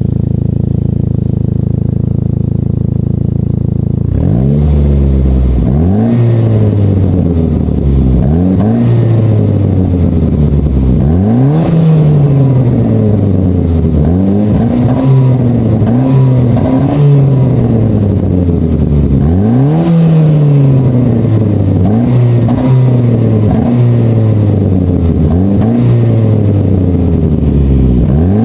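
Saab 9-5 engine idling for about four seconds, then revved again and again, the pitch climbing and falling back every two to three seconds. Its exhaust is loud from a huge leak at the broken flex pipe, a common failure on these cars.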